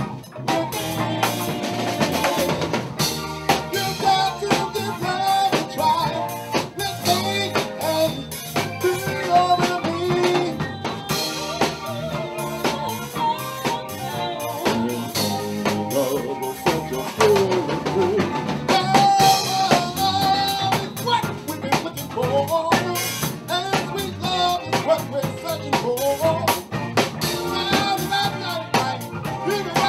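Live band playing: a man singing into a microphone over a drum kit and guitar, with a steady beat of bass drum, snare and rimshots.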